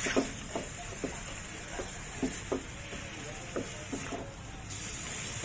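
Wooden spatula scraping and knocking against a metal wok as prawns and sliced onions are stir-fried, in short irregular strokes a few times a second, over the steady sizzle of the hot oil.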